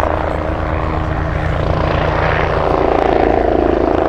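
Agusta A109 helicopter in flight: the steady beat of its main rotor with the whine of its turbines, growing a little louder about three seconds in.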